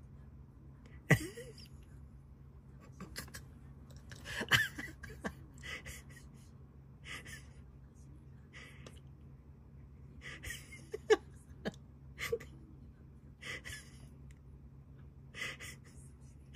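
A person's soft breathy puffs every second or two, with a few sharp clicks, over a low steady hum.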